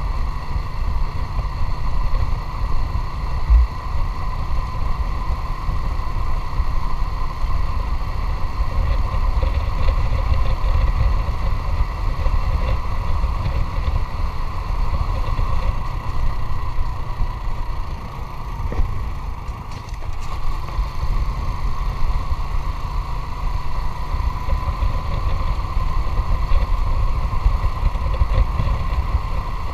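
Motorcycle engine running at a steady speed while riding, its even whine holding pitch, under a heavy rumble of wind buffeting the action-camera microphone. It eases off briefly past the middle.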